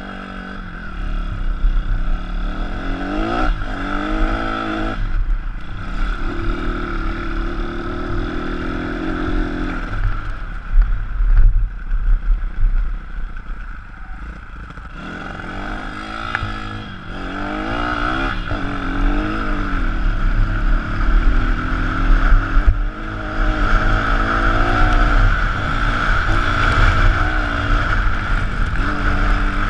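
A 160 cc pit bike's single-cylinder four-stroke engine being ridden hard. The revs climb and drop again and again as the throttle opens and closes, and the revs are held steady for a few seconds at one point. A low wind rumble sits on the microphone throughout.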